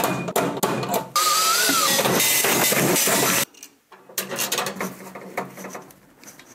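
Cordless drill running steadily for about two seconds, starting and stopping abruptly, its motor whine wavering up in pitch. Clicks and taps of parts being handled come before and after it.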